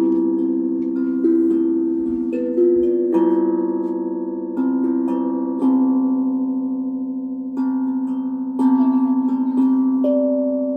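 Steel tongue drum played slowly, one note struck about every second, each note ringing on and blending into the next as a simple melody.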